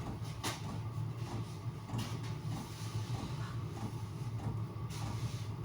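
Handling knocks and scrapes as packing pieces are pushed into place in a wooden box, with a few sharp clicks. A steady low hum runs underneath.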